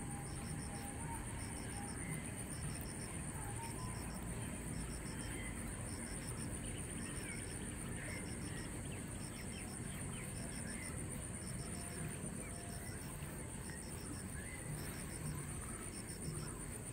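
Insect chorus: a steady high-pitched insect drone with a second insect chirping in short, evenly repeated pulsed groups, and faint bird chirps now and then.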